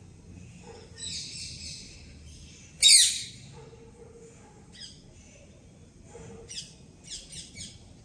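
Songbird calls: a chattering call about a second in, a loud sharp call near three seconds in that is the loudest sound, a short call around five seconds, and a quick run of four or five short notes near the end.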